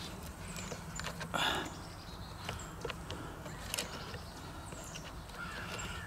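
Faint clicks and a short scrape about a second and a half in, from small parts of a leaf blower's ignition switch and wiring being handled against its plastic housing. Birds chirp in the background.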